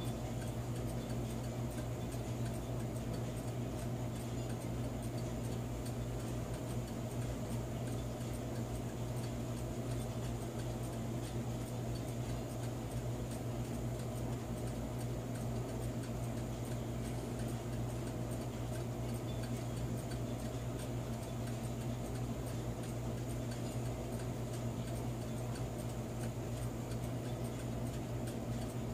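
Sessions electric clock running with a replacement phenolic gear: a steady motor hum with a fast, faint ticking from the movement.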